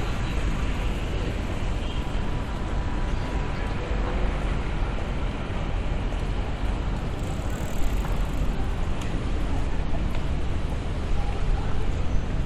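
Steady city street noise: a low traffic rumble with faint, indistinct voices.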